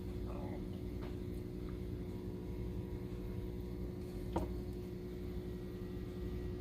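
Steady electrical hum of a small motor or appliance, with a few faint light clicks and one sharper click about four seconds in.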